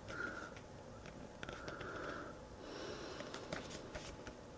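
Faint handling of a paper booklet: soft page rustles and a few light clicks as it is looked through.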